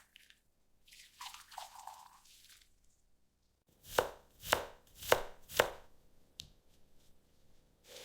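A knife chopping on a cutting board: four sharp chops about half a second apart, after a soft rustling in the first few seconds.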